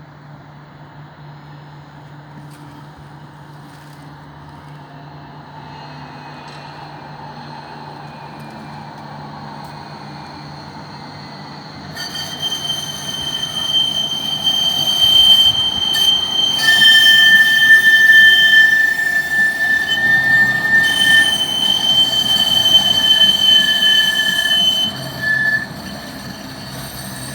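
Karlsruhe tram approaching with a low hum, then about twelve seconds in its wheels break into a loud, high-pitched squeal and scraping against the rails, several piercing steady tones at once, which eases off near the end. The uploader blames it on too little track watering, which is the only thing he says curbs the squeal.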